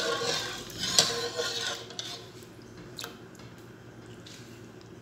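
Metal slotted spoon stirring water in an aluminium pot, swishing and clinking against the pot's side for about two seconds. Then one more clink about three seconds in, over a faint steady hiss.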